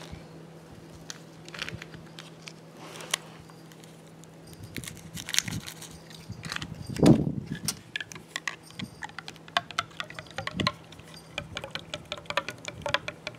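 Powdered creamer poured from a packet into a glass of instant coffee, then a spoon stirring it, clinking against the glass in quick, irregular ticks over the last few seconds. A single low thump about seven seconds in is the loudest sound.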